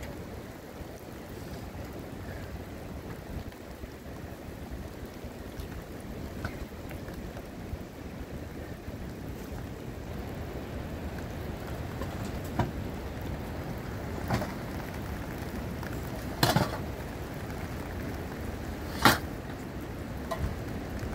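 Steady low outdoor rumble of wind on the microphone, broken in the second half by a few sharp rustles and knocks as bedding and belongings are pulled from a fabric pop-up tent. The loudest knock comes about two seconds before the end.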